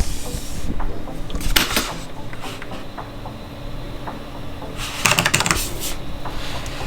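Plastic clicking and rubbing as a Logitech G502 gaming mouse is handled and tried out: scattered light clicks, with two short bursts of rapid clicking about a second and a half in and again about five seconds in.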